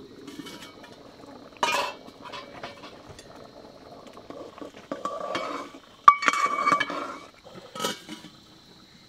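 Metal cooking pot and its lid clanking and scraping while the pot is stirred with a long spoon and the lid is handled. There are several separate clanks, and the loudest is a ringing clang about six seconds in.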